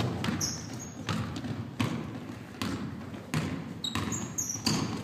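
Basketball dribbled on a wooden gym floor, in irregular bounces, with players' sneakers squeaking and feet running on the court, echoing in a large gym.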